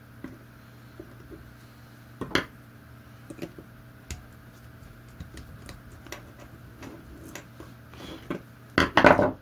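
Scattered small clicks and taps of a screwdriver and plastic Schuko plug parts being handled while the earth wire is fitted into the middle terminal, with a sharper knock about two seconds in and a louder clatter near the end.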